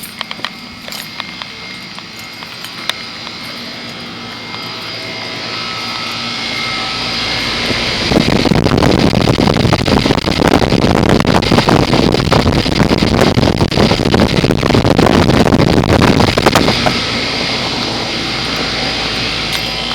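2004 Goodman 10 SEER 3.5-ton heat pump outdoor unit running, with the steady hum of its compressor and condenser fan. About eight seconds in, a loud rushing noise swells up, then it eases off a few seconds before the end.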